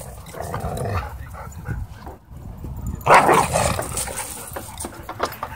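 Huskies wrestling in rough play, barking and vocalizing, with the loudest outburst about three seconds in.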